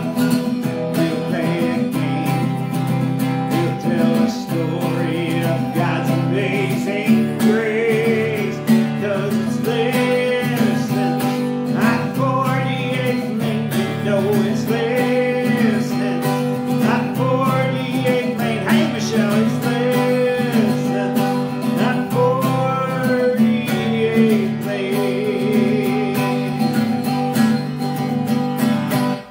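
Acoustic guitar strummed in a steady rhythm while a man and a woman sing a song together.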